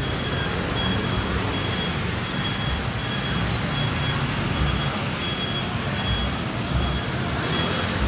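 City street traffic: a steady wash of engine rumble and road noise, with a short high electronic beep repeating about one and a half times a second.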